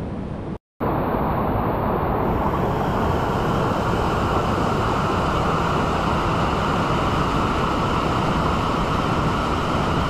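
Steady rush of a waterfall pouring over rocks into a pool. It breaks off for an instant just under a second in and comes back louder.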